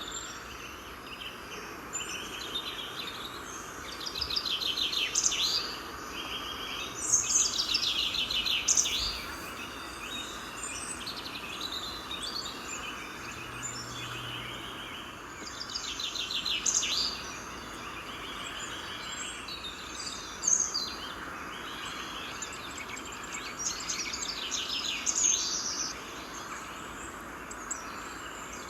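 Songbirds singing in short, rapid trilled phrases that come and go every few seconds, over a steady background hiss.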